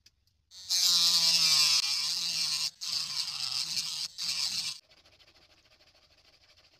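A small electric motor spinning a sandpaper-wrapped sanding drum, grinding a small white PVC piece: a loud grinding hiss with a motor whine under it. It starts about half a second in, breaks off briefly twice, and stops just under five seconds in.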